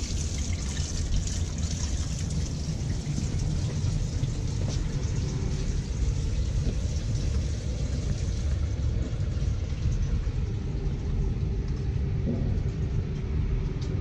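Water running from a utility-sink faucet into the basin, draining the water lines after the supply valves are shut, over a steady low rumble. The water's hiss fades about halfway through.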